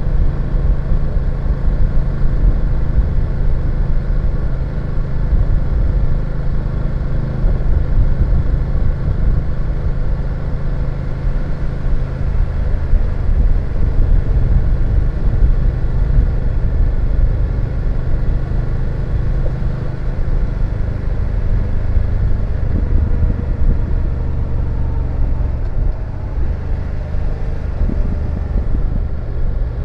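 BMW F850GS parallel-twin engine running under way at a fairly steady speed, easing off slightly about three-quarters of the way through.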